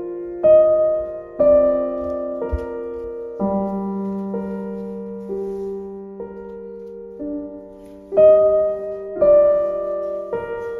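Background piano music, slow, with a new note or chord struck about once a second.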